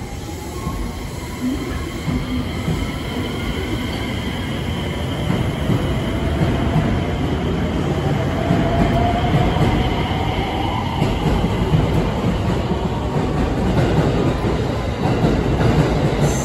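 JR West 225 and 223 series electric train pulling away from the platform. Its inverter-driven traction motors give a whine that rises in pitch as it gathers speed, over a growing rumble of wheels on rail, louder toward the end.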